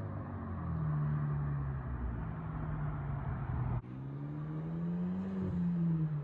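Hyundai Genesis Coupe 2.0T turbocharged four-cylinder with a catless, muffler-delete straight-pipe exhaust, running at a steady low note. After an abrupt break about four seconds in, the exhaust note rises as the car accelerates, then eases off.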